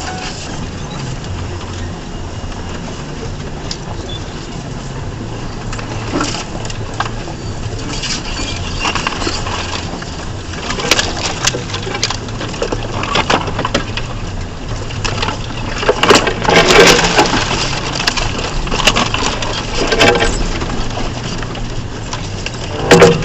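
A stock 2004 Ford Ranger's 4.0-litre V6 running at low speed off-road, its drone steady underneath, with a run of knocks and clatters from the truck working over rough trail, growing about halfway in and loudest a few seconds later.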